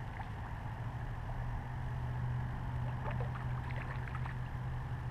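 Faint small splashes from a hooked bluegill thrashing at the water's surface, clustered about three to four seconds in, over a steady low hum.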